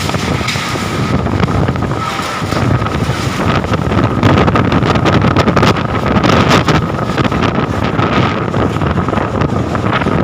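Strong wind gusting and buffeting the microphone, growing louder a couple of seconds in.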